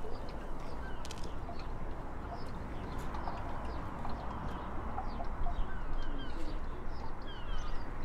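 Outdoor ambience: small birds chirping here and there over a steady background hiss and low rumble.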